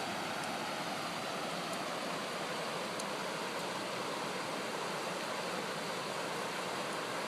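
Fast-moving monsoon floodwater rushing through a desert wash, a steady even roar of churning water.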